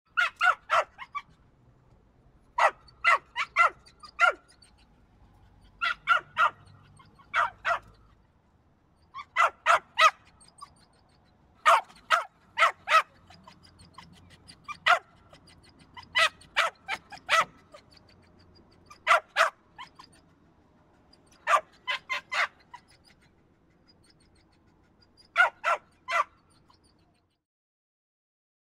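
A dog barking in short bursts of two to four sharp barks, about ten bursts with pauses of a second or two between them.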